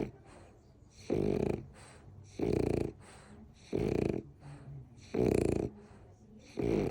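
Rhythmic snoring: five short, loud snores, about one every second and a half, with softer breathing between them.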